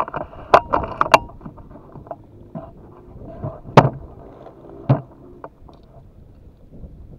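Clicks and knocks from a PCP air rifle and its scope-mounted camera being handled and swung: three quick clicks in the first second or so, then two louder knocks about four and five seconds in.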